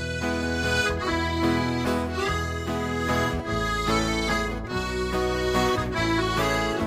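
Instrumental hymn introduction on a reedy, accordion-like instrument playing sustained chords under a moving melody.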